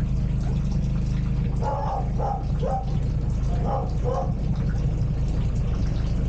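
A narrowboat's diesel engine idling steadily with a low hum. A few brief call-like sounds come through about two seconds and four seconds in.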